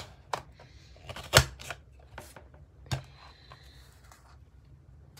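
Creative Memories Border Maker System with the Zebra Stripe cartridge punching a brown paper strip. Each press of the cartridge as it moves down the track gives a sharp click, about half a dozen in the first three seconds, the loudest about a second and a half in.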